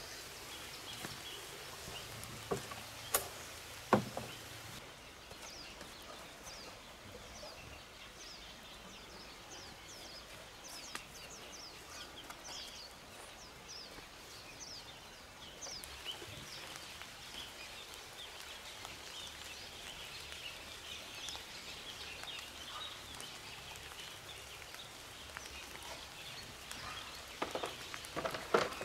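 A few sharp knocks in the first four seconds as a corrugated metal sheet is handled. Then quiet rural ambience with a long run of short, high, falling chirps, about two a second, thickening into a busier high chirping, and a few more clicks near the end.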